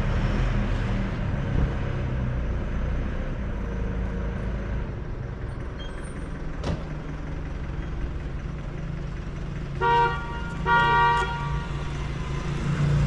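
Street traffic running by, with a car horn honking twice in quick succession late on, the second honk a little longer. There is also a single sharp click midway.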